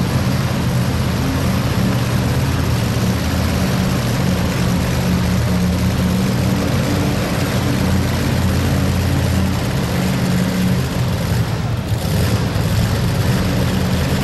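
Supercharged engine of a 2WD pulling truck (a Dodge Rampage) running at a steady low speed: a loud, even drone. The note changes about eleven seconds in.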